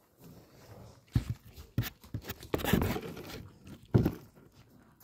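A few short thumps and a stretch of rustling, scraping noise, about two and a half seconds in.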